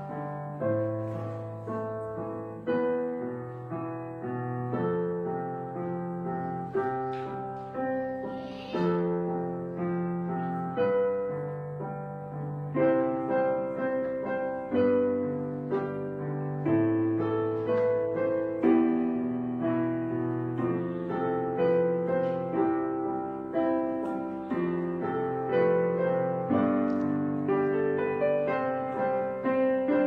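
Background piano music: notes and chords struck about once or twice a second, each fading before the next.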